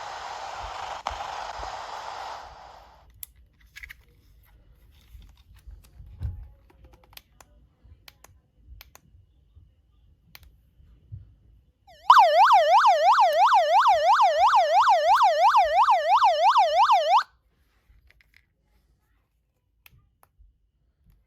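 Radio static hiss for the first couple of seconds, then scattered light clicks, then an electronic siren: a loud warbling tone rising and falling about five times a second, sounding for about five seconds and cutting off suddenly.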